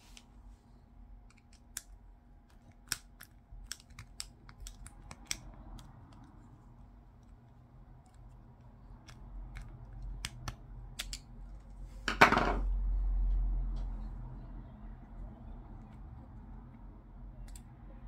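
Light metal clicks and ticks of a car door lock cylinder being handled while a flat screwdriver works at its C-shaped retaining clip. About twelve seconds in comes a single louder sudden noise that fades over a second or so.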